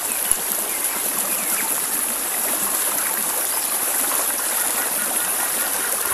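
Shallow rocky stream running over stones, a steady wash of water.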